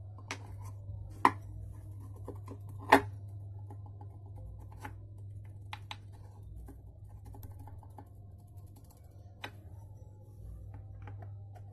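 Metal parts of a dismantled Hyundai i20 car AC compressor clicking and clinking as they are handled, with two louder knocks about a second and three seconds in, over a steady low hum.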